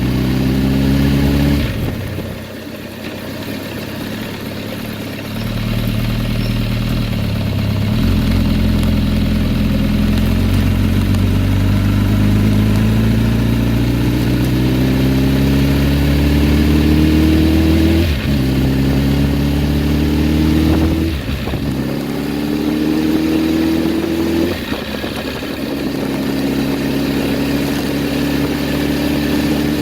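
2007 Kawasaki Ninja ZX-10R's inline-four engine accelerating through the gears. Its pitch climbs steadily, then drops sharply several times, with a quieter off-throttle stretch near the start. The bike has a loud ticking and rattle on deceleration that the owner has not traced despite new cam chain, tensioner, valve adjustment and clutch work.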